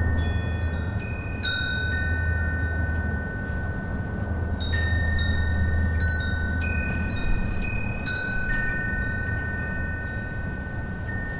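Wind chimes ringing irregularly in the wind, a few high clear tones struck every second or two and left to ring on, over a steady low rumble of wind.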